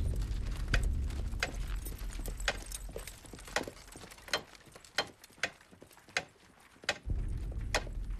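A series of sharp knocks at uneven intervals, roughly one or two a second. Under them is a low rumble that is strong in the first second or two, then fades, and comes back near the end.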